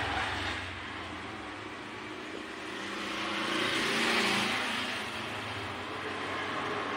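A passing road vehicle, its noise rising to a peak about four seconds in and then fading.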